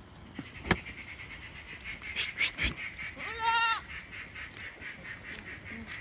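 A goat bleats once, a short wavering call about halfway through. A sharp click comes about a second in, and a faint pulsing high hum runs behind it.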